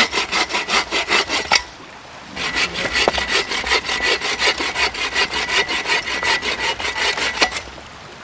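Agawa Canyon Boreal 21 folding bow saw cutting firewood, in quick rhythmic strokes about five a second. It pauses briefly about two seconds in, resumes, and stops near the end.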